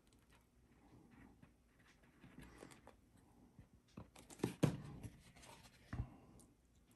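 Faint rubbing and scratching of chipboard pieces and a plastic glue bottle being handled as white glue is squeezed onto the board edges, with a few light knocks a little past halfway through as the bottle is set down on the cutting mat.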